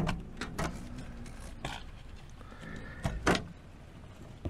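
Cockchafers (maybugs) in a lit moth trap knocking against the perspex and light tube: a few sharp taps at uneven intervals, the loudest about three seconds in.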